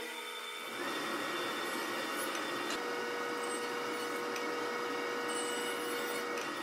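King jointer running as a rough old barnwood board is pushed across its cutterhead, a steady machine noise with a held hum. A steady whine joins about three seconds in and stops shortly before the end.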